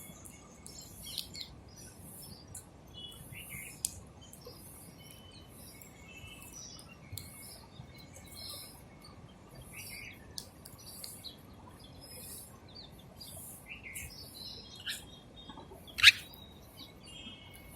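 House sparrows chirping in many short, repeated chirps, with one much louder sharp chirp near the end.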